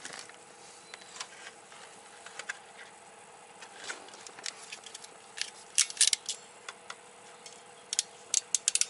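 Wire crimper and connector caps clicking and snapping as gauge wires are capped off and crimped: scattered sharp clicks, bunching into quick runs about halfway through and again near the end.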